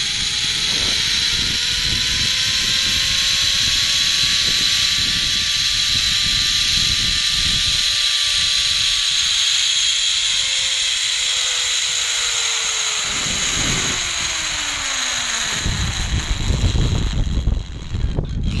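Zipline trolley pulleys running down the steel cable: a steady hiss with a whine that rises slowly as the rider speeds up, then falls and stops as the trolley slows about three-quarters of the way through. Wind rumbles on the microphone throughout, louder after the whine stops, with a few knocks near the end as the rider reaches the landing platform.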